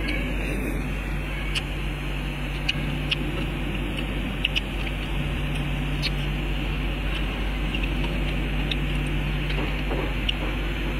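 Scattered light clicks of chopsticks against shellfish shells and the plate during eating, over a steady low hum and hiss.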